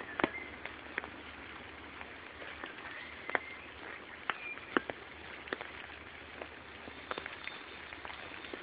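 Rainwater dripping from wet tree leaves: irregular single sharp drips over a steady background hiss, with a few short bird chirps.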